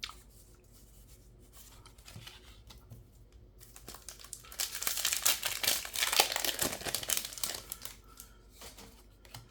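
A Magic: The Gathering set booster pack's foil wrapper being torn open and crinkled. There are faint handling sounds at first, then a few seconds of loud crinkling and tearing from about halfway through.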